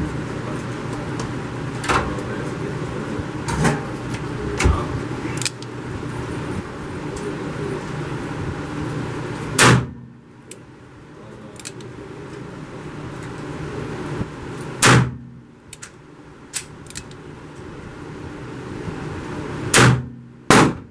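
Gunshots in an indoor shooting range: three loud reports about five seconds apart, each with a short echo, and smaller clicks and knocks between them over a steady background hum.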